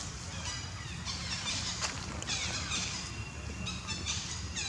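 Birds chirping, many short high calls that fall in pitch and overlap one another, over a steady low rumble.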